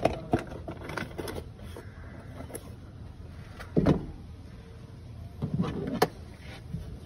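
Vauxhall Corsa engine idling with the bonnet open, a steady low rumble. A few knocks and clunks cut across it, the loudest about four seconds in and another around six seconds in.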